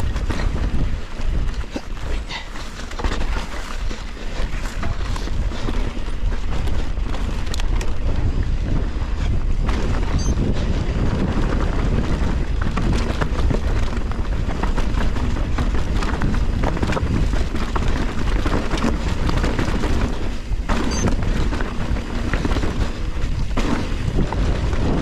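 Trek Slash full-suspension mountain bike descending a rough dirt singletrack at speed: wind buffeting the microphone under a constant clatter of tyres, chain and frame knocking over rocks and ruts.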